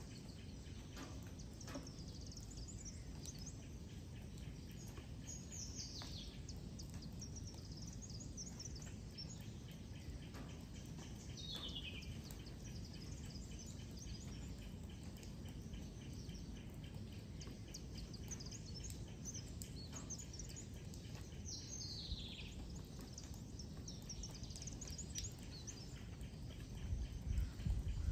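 Birds chirping and calling over a steady low outdoor rumble. A high whistled call slides downward three times, and a few low thumps come near the end.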